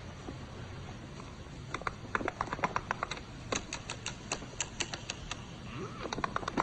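A quick, irregular run of sharp clicks and taps starting about two seconds in, like keys being typed.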